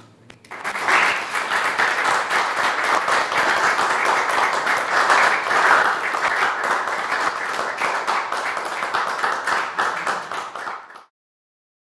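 Audience applauding, starting about half a second in and cutting off abruptly near the end.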